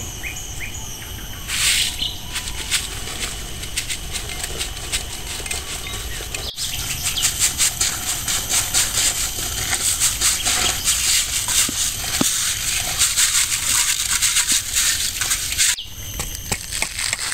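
Dried mung beans sliding off a metal tray into a pot of boiling water: a dense rattling patter of many small clicks for several seconds. Insects keep up a steady shrill drone behind it.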